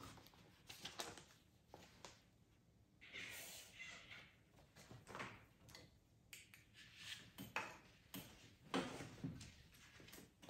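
Faint rustling and light knocks of someone handling a paper colouring booklet at a table and moving away from it, with the loudest knock near the end.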